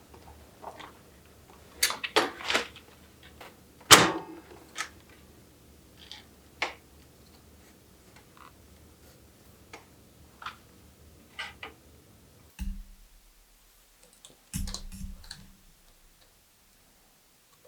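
Scattered clicks, taps and knocks from metal tools and bicycle parts being handled during assembly, with one sharper knock about four seconds in.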